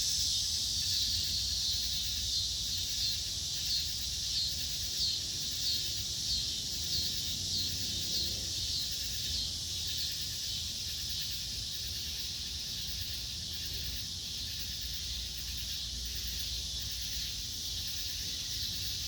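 Chorus of insects at dusk: a steady high-pitched buzz, with a pulsing call repeating about every two-thirds of a second through the first half that fades out.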